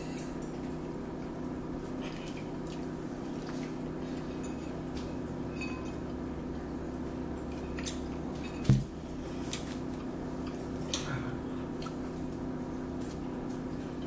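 Meal at a table: a metal spoon clinking now and then against ceramic bowls, with soft eating sounds over a steady low hum. One louder thump comes a little past halfway.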